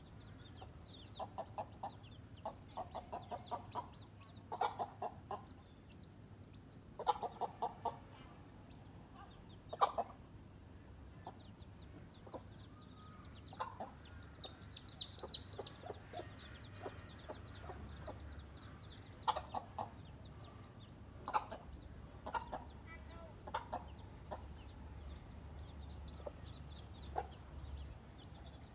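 A mother hen clucking in quick runs of several short clucks, broken by pauses, as she stands guard over her chicks with a cobra close by. Her chicks peep in high chirps, with a burst of them about halfway through.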